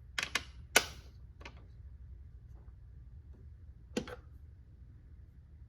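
A few sharp clicks and clinks of hand tools being picked up and set down in a tool cart, the loudest about a second in with a short metallic ring, and one more near four seconds.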